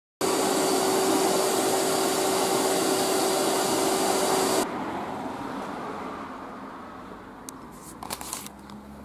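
Loud steady whoosh of an electric air-moving appliance, with a steady hum in it, cutting off abruptly about four and a half seconds in. A faint fading hiss and a few light clicks follow near the end.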